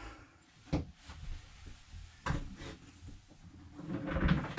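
A few light knocks and a shuffle of handling as the RV toilet is gripped to be lifted off its floor mount. A longer, louder rustling scrape comes near the end.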